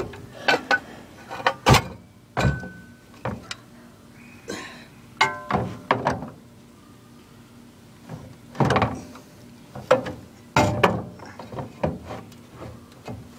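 Irregular knocks, clicks and clatters as an old film projector's casing and cover are handled and opened up by hand, with a brief ringing tone after one or two of the knocks.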